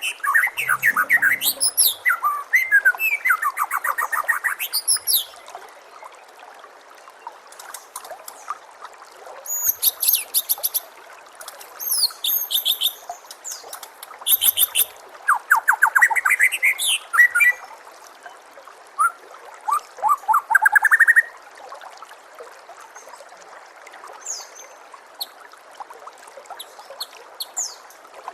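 White-rumped shama singing loud, varied phrases of whistles and rapid trills. After about twenty seconds it gives way to scattered fainter notes, over a steady trickle of water.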